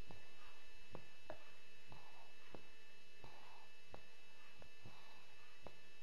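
Sleeping pug breathing noisily, a soft snore about every second and a half, over a steady hum and faint irregular clicks.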